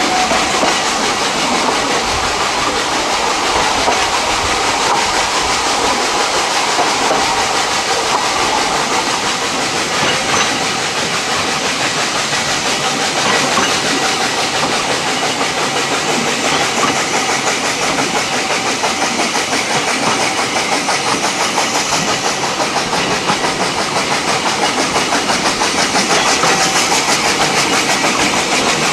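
A narrow-gauge steam train on the move, heard from an open carriage window: the steady clatter of the carriages running over the track, with steam hiss from the Beyer, Peacock 0-6-0 tank locomotive working at the head of the train.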